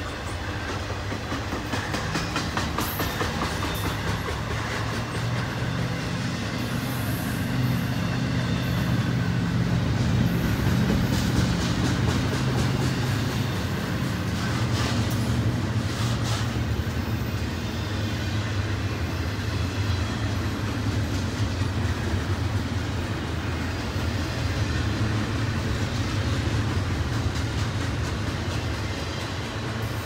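Double-stack intermodal freight train's container cars rolling past: a steady rumble of steel wheels on rail with scattered clicks, a little louder midway.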